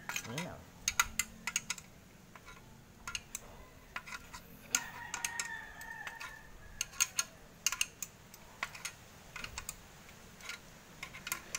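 Light, irregular metal clicks and clinks from a steel chain sprocket and its bolts and nuts being handled and shifted on a hub.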